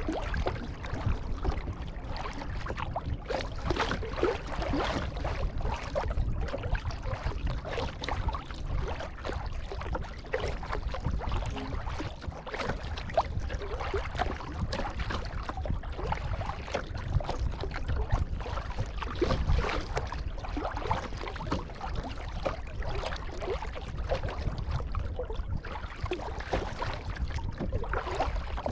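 Kayak paddle strokes: the blades dip and splash in sea water and drip between strokes, in irregular splashes over a steady low rumble.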